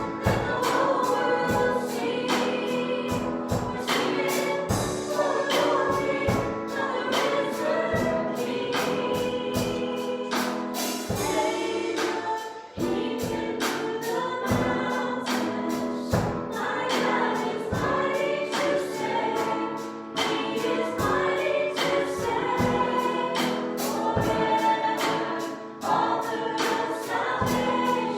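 Church worship song: a group of singers with a band, over a steady drum beat, with a brief dip in the music about halfway through.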